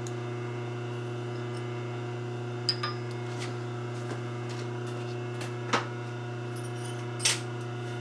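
Steady electrical hum, with three sharp metal clinks and knocks spread through it, the first with a brief high ring, from hand tools being handled.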